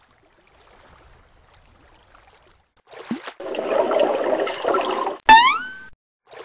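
Cartoon underwater sound effect: bubbling, gurgling water that starts about three seconds in and lasts about two seconds. It is followed by a sharp click and a short tone that rises in pitch.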